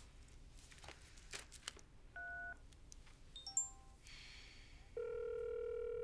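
A mobile phone being dialled: a few faint clicks of handling, a single keypad beep, then a quick run of short keypad beeps at different pitches. About five seconds in, a steady ringing tone starts as the call goes through.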